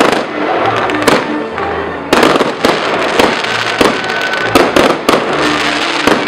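Fireworks display: a rapid series of loud shell bursts and sharp bangs with crackle, several a second at times, over music playing.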